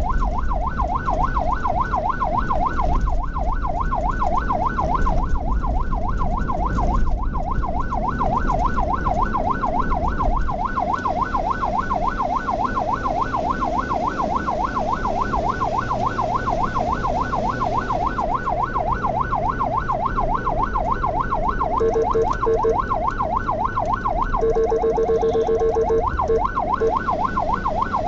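Ambulance siren in yelp mode, a fast rising-and-falling wail about three times a second, over the low rumble of the vehicle driving. Near the end a horn sounds in a few short blasts and one longer blast.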